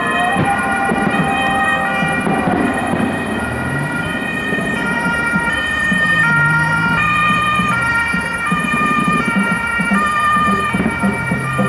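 German two-tone emergency sirens (Martinshorn) on an ambulance and an emergency doctor's car passing on an emergency run, each switching between a high and a low note about once a second, the two sirens out of step with each other.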